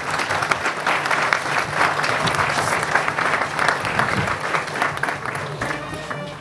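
Audience applauding at the close of a speech. The clapping is steady and dies down near the end.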